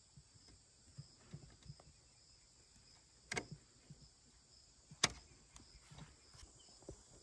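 Pliers working steel tie wire around a bamboo post: small scraping ticks and two sharp metallic clicks about a second and a half apart, the second the louder. A faint steady insect drone sounds behind.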